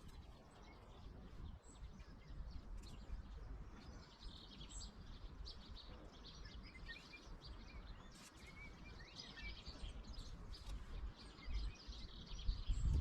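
Birds chirping on and off over a low wind rumble on the microphone, with a few faint clicks.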